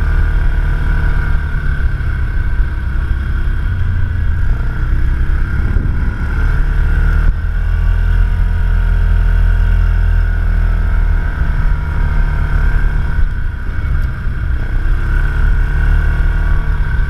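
ATV engine running as the quad is ridden along a gravel trail, a steady low rumble with the engine note rising and falling a little with the throttle.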